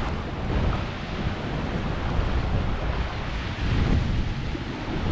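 Wind buffeting the microphone in gusts, over the wash of the sea against the rocks.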